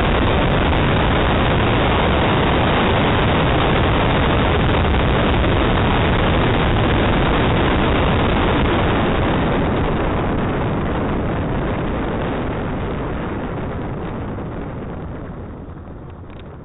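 Ford Escort RS2000 driving a slalom course, picked up by a roof-mounted camera's microphone as a loud, dense rush of wind and car noise that drowns out any clear engine note. It fades away over the second half.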